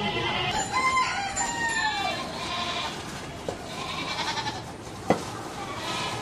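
Live goats bleating, with wavering calls in the first two seconds and again around four seconds, over steady market background noise. A sharp knock sounds a little after five seconds.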